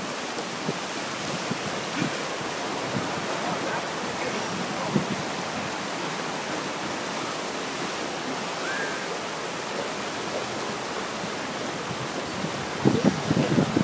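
Fast, shallow river rushing over stones: a steady rush of water, with louder irregular bursts in the last second.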